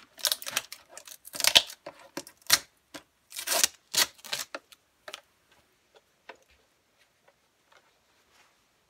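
Clicks, knocks and short rustles of hands handling a diesel generator's parts and an oil container while adding oil, busy for about five seconds, then only a few light ticks.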